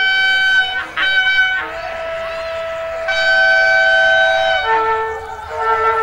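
Multi-tone horn of GM-rebuilt CFR diesel locomotive 65-1013-5, played as a 'horn show': a run of loud held chords that switch pitch every second or so. A lower note with a rushing hiss of air comes in the middle.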